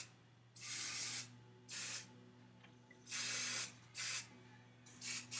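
Aussie aerosol hairspray can spraying in a series of short hissing bursts about a second apart, ending in a few quick spurts.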